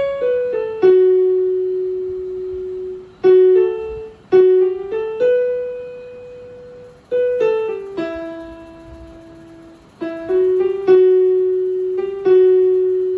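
Electronic keyboard played with a piano sound: a slow single-note prayer melody. Short falling runs of notes lead into long held notes that ring and fade away.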